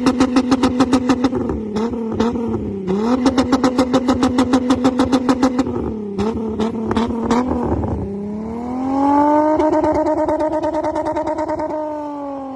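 Volkswagen Jetta VR6 engine revving, held at a steady high pitch with a rapid, even stutter, twice dipping briefly and climbing back. About eight seconds in, it climbs smoothly to a higher, smooth steady note that eases off slightly near the end.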